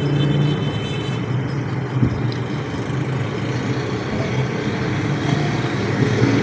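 Steady background rumble of road traffic, with a low engine hum running under it.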